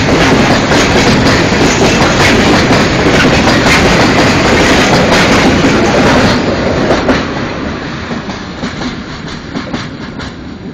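Freight train of open coal wagons rolling past, with wheels clacking over the rail joints. The last wagon goes by about two-thirds of the way through, and the noise then fades as the train moves away.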